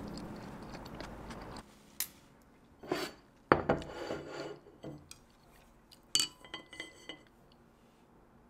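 An empty ceramic plate knocks on a wooden table, then wooden chopsticks are laid on it with several light clinks that leave a short ring.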